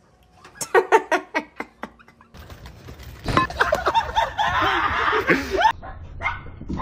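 People laughing in short, quick bursts. A couple of seconds in, the sound switches abruptly to a louder, noisier stretch of laughing voices over a hiss, which cuts off sharply near the end.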